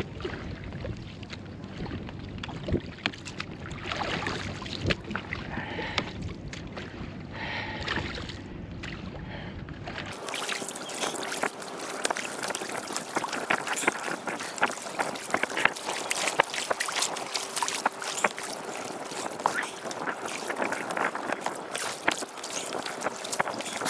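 Wind and water sloshing around a small inflatable boat on open sea, with a low rumble of wind on the microphone. About ten seconds in the sound changes abruptly to a thinner, crackling splash-and-wind noise with a faint steady hum underneath.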